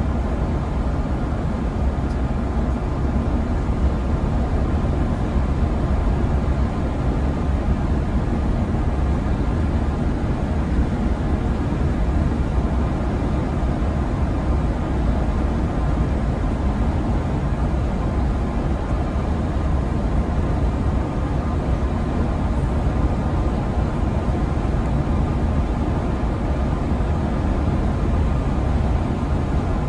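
Steady cabin noise of a Mercedes-Benz Travego coach cruising on a highway: a low drone of engine and road noise from the driver's position.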